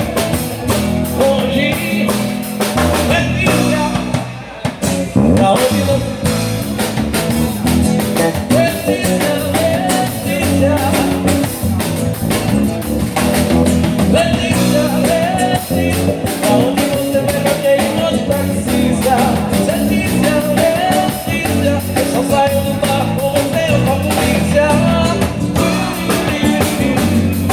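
A live band playing with drum kit, bass and singing, with a short break about four and a half seconds in.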